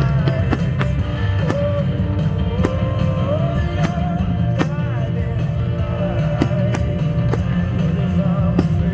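Loud music with singing over a heavy low beat, with sharp percussive hits about once a second.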